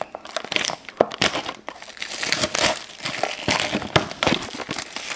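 Plastic wrapper of a trading-card pack crinkling and crackling as it is worked open with a dull blade and by hand, in many irregular crackles.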